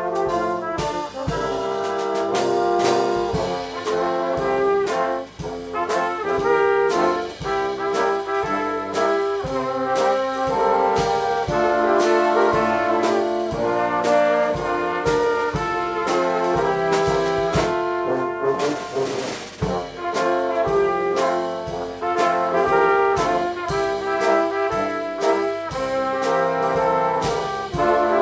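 Small brass band of E-flat and B-flat cornets, alto horn, two tenor horns and bass tuba playing a tune, with a drum kit keeping a steady beat.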